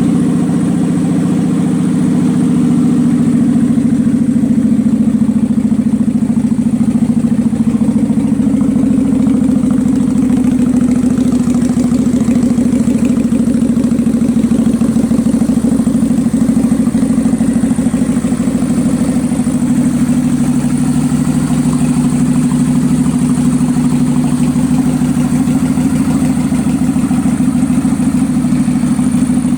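Kawasaki Vulcan 800 V-twin motorcycle engine idling steadily on full choke just after a cold start. The owner takes it to be misfiring from the carburetor, with the misfire slapping the air filter assembly.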